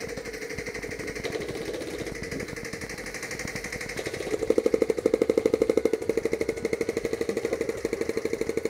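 Airsoft guns firing on full-auto: a fast, even rattle of shots that grows louder about four seconds in.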